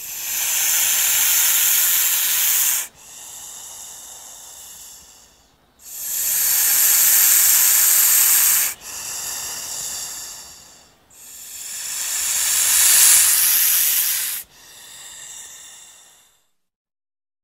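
Snake hissing: three long, loud hisses, each followed by a quieter hiss that fades away.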